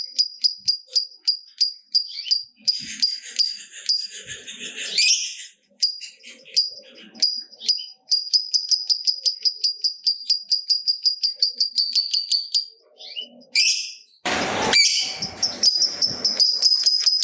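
Lovebird chattering ('ngekek panjang'): long runs of rapid, sharp, high-pitched notes at about five a second. The runs break around three seconds in for some harsher, scratchier calls. A short loud burst of noise comes near the end.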